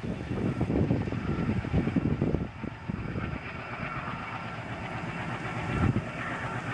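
Passenger train running past, its wheels clattering over the rail joints. The clatter eases to a steadier rumble about two and a half seconds in.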